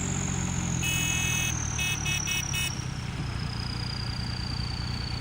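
Tractor engine running steadily, with a thin high whine that slowly falls in pitch. About a second in there is one short beep, then a quick run of four more.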